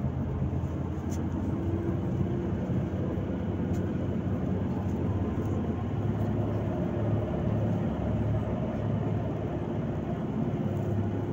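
Inside a Volgabus-5270.GH city bus under way: the engine's steady low drone and road rumble heard through the passenger cabin.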